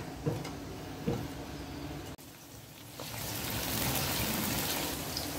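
Chopped onions sizzling in hot oil in a metal kadhai: a fainter hiss at first, then a louder, steadier sizzle from about three seconds in.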